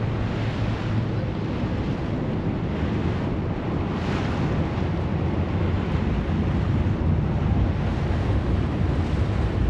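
Wind buffeting the microphone on the open deck of a moving ferry, with the wash of harbour water and a steady low rumble underneath.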